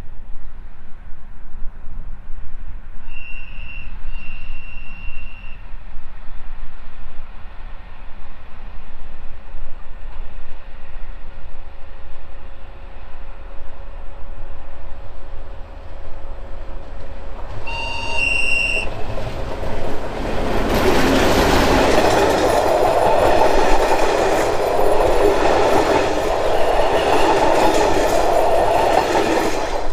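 Czech diesel locomotive sounding its horn in the distance, a short blast then a longer one, then a louder horn blast about halfway through. It then passes close by, loud engine and wheel noise for the last nine seconds or so.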